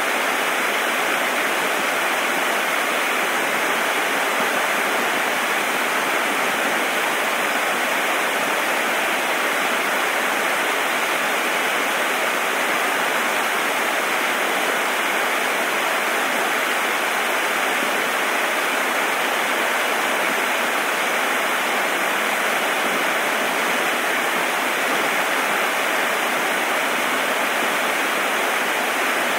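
Steady, unbroken rush of running water, as from a stream or small waterfall, with no change in level.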